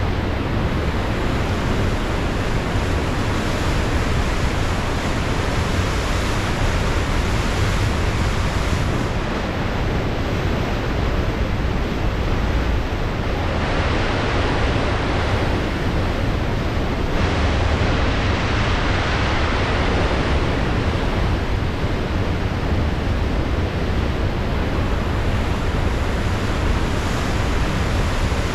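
Pacific Ocean surf washing in with a steady rush, under a low wind rumble on the microphone; two louder swells of surf come a little after the middle.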